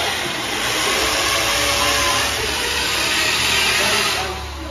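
Corded power drill running steadily as it drills into a wall, stopping near the end.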